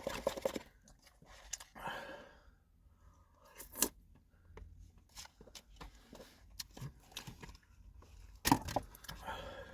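Close-up eating sounds: chewing and mouth noises, with scattered crunches and sharp clicks. The loudest clicks come about 4 seconds in and again near 8.5 seconds.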